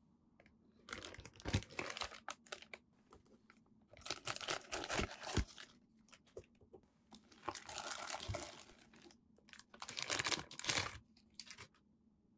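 Clear plastic packaging bag crinkling and rustling in four bursts with quiet gaps between them, as it is handled and opened and the figure is pulled out of it.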